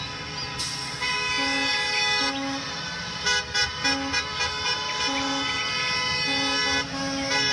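School buses sounding their horns as they pull out: a steady, held horn chord with short honks coming in and out over it, again and again.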